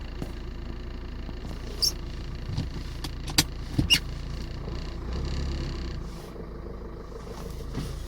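Hyundai HD72 truck's diesel engine running at low speed as the truck creeps forward, a steady low rumble that swells slightly for a moment past the middle. A few sharp clicks are heard over it.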